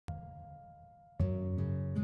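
Intro music: plucked guitar notes, a first note at the very start ringing out, then new notes about a second in.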